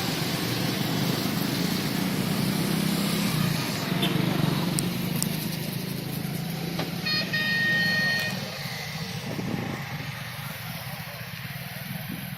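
Road traffic: a vehicle engine running steadily, with a horn sounding once for about a second around seven seconds in.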